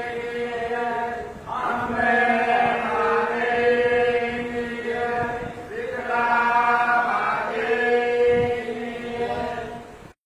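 Chanting over a steady drone, in repeated phrases a few seconds long, cutting off abruptly near the end.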